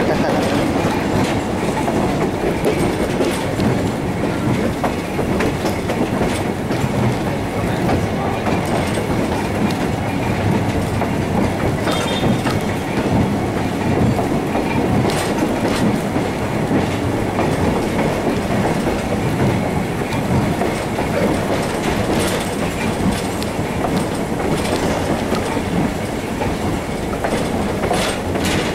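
Shay No. 11, a geared steam locomotive, working hard as it pulls the train away, heard from a passenger car behind it. It makes a loud, steady rush of exhaust and running gear, with a few sharp clicks from the wheels on the rails.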